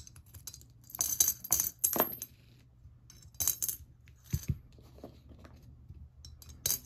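Coins dropped one at a time through the slot of a ceramic bunny coin bank, each landing with a short metallic clink, several times at uneven intervals.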